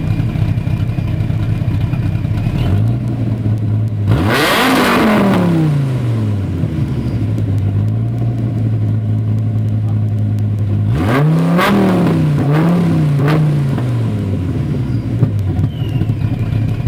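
Supercharged V10 of a 2003 Dodge Viper, breathing through Belanger headers and side-pipe exhaust, idling loud. It is revved once about four seconds in and blipped twice in quick succession about eleven seconds in, each time falling back to idle.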